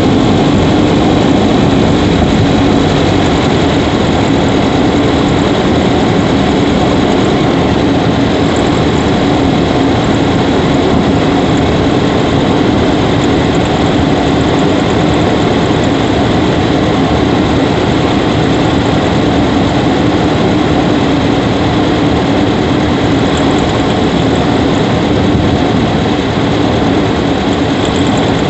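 Subaru Levorg 1.6GT-S turbocharged flat-four engine running steadily, heard from inside the engine bay near the intake. A few faint, brief high-pitched chirps come through above it, the squeaking noise from the engine bay that the owner is tracking down.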